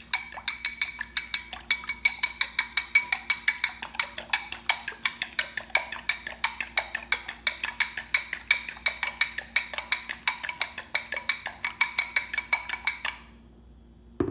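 Metal fork beating a raw egg in a ceramic bowl: a fast, steady clinking of about five or six strokes a second as the tines strike the bowl, which rings with each stroke. The beating stops about a second before the end.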